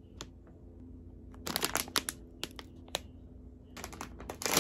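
Plastic candy bag crinkling and crackling as it is handled, with a louder burst of crackling near the end as the top of the bag is pulled open.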